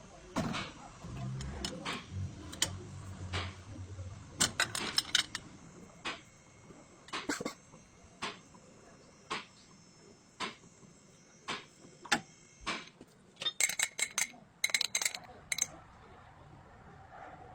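Metal hand tools clinking and tapping on steel parts: sharp separate metallic clicks, about one a second in the middle, with quicker runs of clinks near the start and toward the end.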